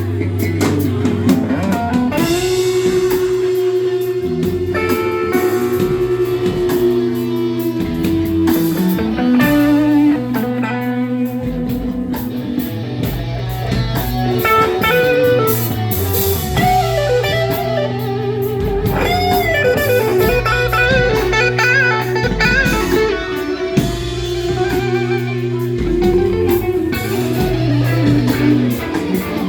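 Guitar-led band music without vocals: an electric guitar plays held and bent notes in a bluesy style over a steady bass line, the instrumental opening of an original song.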